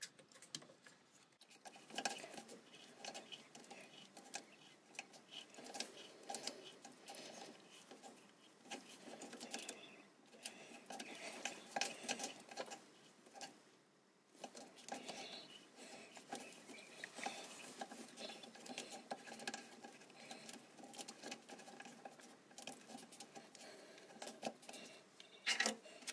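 A hand tap turned in a tap wrench, cutting a thread in the lathe's cast-iron bed: faint, irregular metallic clicking and scraping as the tap is worked round, with a louder click near the end.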